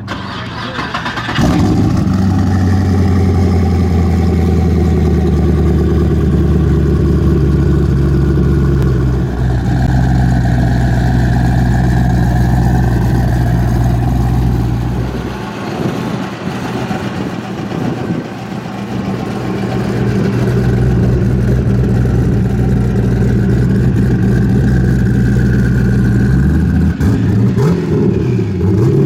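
Muscle car V8 engine catching about a second and a half in and settling into a steady, loud idle. It drops off for a few seconds in the middle, then holds steady again and revs up near the end.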